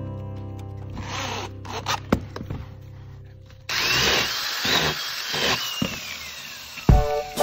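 Handheld power drill working into a pine block, starting suddenly about halfway through; its motor whine climbs and then slowly falls over about two seconds.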